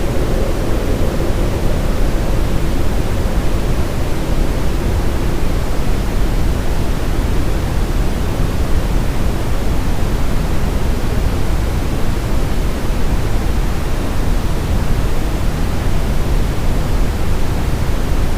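Steady brown noise with reverb, heaviest in the low end and even throughout. A faint low drone under it fades out in the first few seconds.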